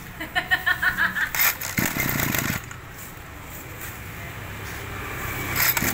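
Small Maruyama brush cutter engine idling just after being pull-started. There is a quick stuttering run of pulses in the first second and a short loud rush of noise about two seconds in.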